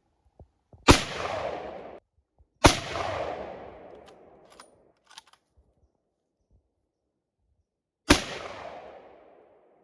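.300 Winchester Magnum rifle fired three times, the first two shots about two seconds apart and the third about five seconds later, each shot followed by a long echoing tail. Faint clicks come between the second and third shots.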